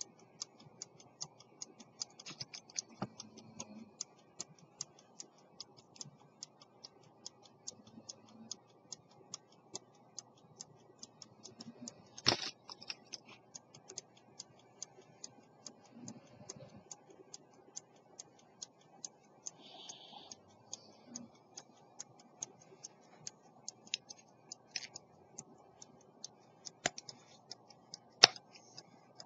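An 18th-century London silver fusee pocket watch with a verge escapement ticking with rapid, even beats, about five a second: the restored movement is running. A few louder knocks from the watch being handled break in, the loudest about twelve seconds in and another near the end.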